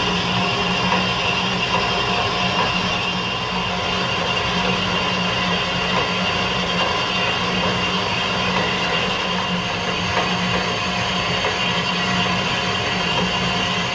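Horizontal metal-cutting band saw running steadily as its blade cuts through a clamped workpiece, a constant low motor hum with a steady high whine from the blade.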